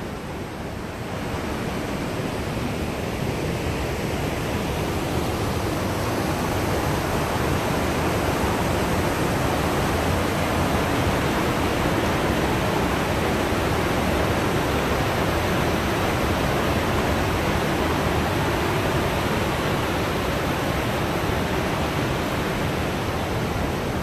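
River rapids rushing through a rocky gorge: a steady whitewater noise that grows louder over the first several seconds, then holds.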